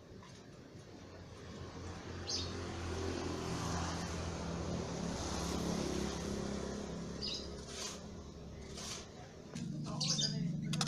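A motor vehicle passing by, its engine and road noise swelling over a few seconds and then fading. Birds chirp briefly a few times.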